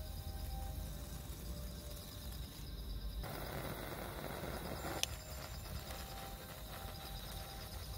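Night insects chirping in a steady rapid pulse over a low rumble. About three seconds in a rushing noise rises for a couple of seconds and ends with a sharp click.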